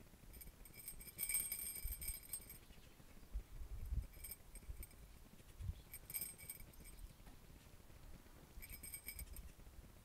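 Light metallic tinkling in four short bursts, the first and longest about a second in, with a few soft low thumps between them.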